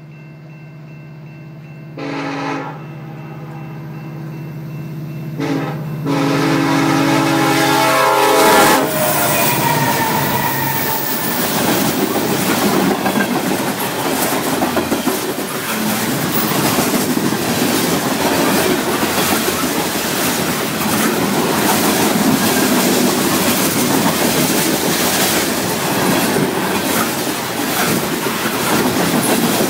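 Canadian National diesel locomotive approaching with its engine running, blowing its horn for the grade crossing: a short blast about two seconds in, another brief one, then a long blast whose pitch drops as the locomotive passes. Then loaded coal bathtub gondola cars roll by with a steady rumble and rhythmic clickety-clack of wheels over rail joints.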